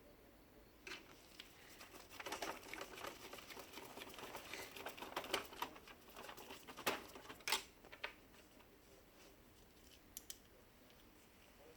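Hands working on a laser printer's plastic parts: a run of small clicks, taps and rattles, with two sharper clicks a little past the middle, then only a couple of faint ticks.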